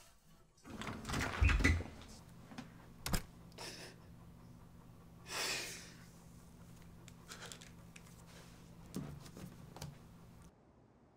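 A door shutting with a heavy thud, a sharp knock a second or so later, then a long breath out. A low steady hum runs underneath and cuts off suddenly near the end.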